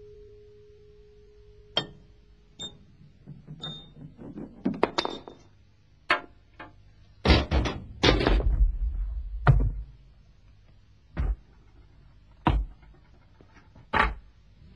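Honda Accord car parts knocking into one another on a wooden floor: a metallic ringing tone fades away, then light metal clinks and clatters, a low rumble of a tyre rolling across the floorboards around the middle, and three separate knocks near the end.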